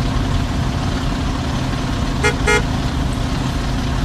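Traffic jam: a steady low rumble of car engines, with two short car-horn toots in quick succession about two seconds in.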